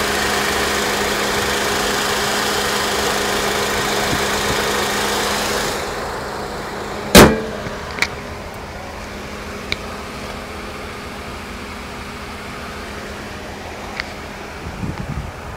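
2008 Acura TSX's 2.4-litre i-VTEC four-cylinder idling steadily with the hood open. About seven seconds in the hood is slammed shut with one loud bang, after which the engine is heard more quietly, with a few light clicks.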